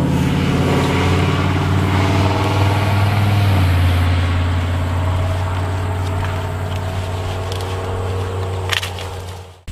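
A motor vehicle's engine running steadily with a low, even hum that fades away over the last few seconds, and a short sharp snap near the end.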